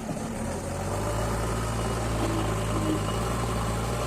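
JCB backhoe loader's diesel engine running steadily at idle, a low even hum that grows stronger about a second in.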